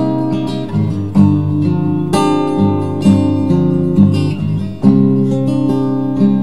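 Acoustic guitar played alone, chords strummed and plucked in a steady rhythm, fresh chords struck about every half second.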